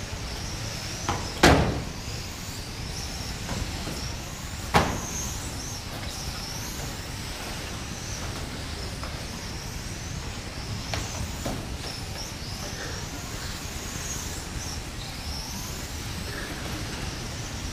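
Small electric radio-controlled race cars running on a carpet track, their motors giving high-pitched whines that rise and fall as they accelerate and brake. Two sharp knocks, about a second and a half in and again near five seconds, stand out as the loudest sounds.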